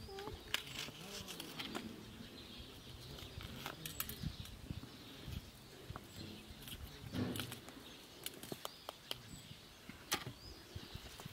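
Birds chirping faintly now and then, with scattered light clicks and knocks and a brief low rumble about seven seconds in.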